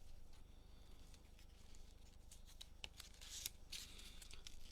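Faint handling of trading cards: soft clicks and taps with a few short rustles as the cards are slid and sorted by hand.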